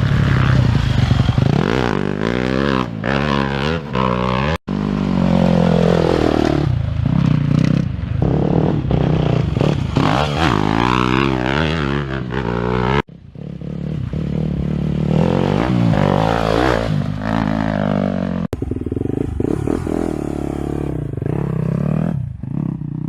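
Dirt bike engines revving hard, pitch climbing and dropping again and again as they rev up and shift. The sound breaks off suddenly three times, as separate riding clips are cut together.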